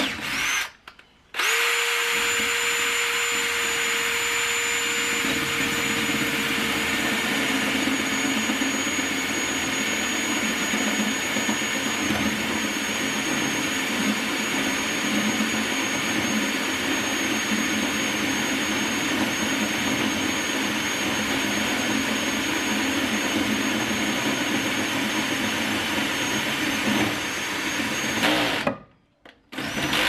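Cordless drill boring into a steel door frame: a short burst of drilling about a second in, then one long steady run with a constant motor whine that stops abruptly about a second before the end.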